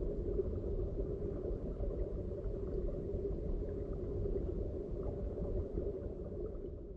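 Steady, muffled rumble of stream water recorded underwater, with faint scattered clicks; it fades out near the end.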